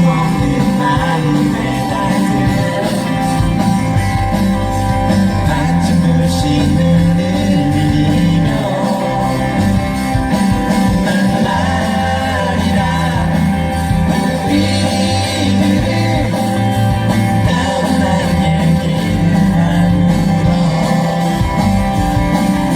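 Live pop-rock band playing loudly, with electric guitar, bass and drums under singing.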